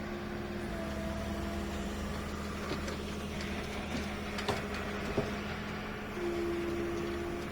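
Tow truck engine idling with a steady hum, a brief whine about a second in and a steadier whine near the end, and two sharp clicks in the middle.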